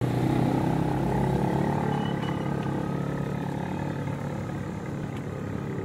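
Street traffic: a motor vehicle's engine running with a low, steady rumble that slowly fades.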